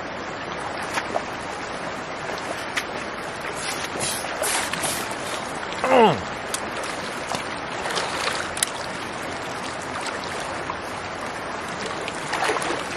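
Shallow rocky creek running, a steady rush of water over stones, with scattered splashes of wading feet. About halfway through comes a brief, loud cry that falls steeply in pitch.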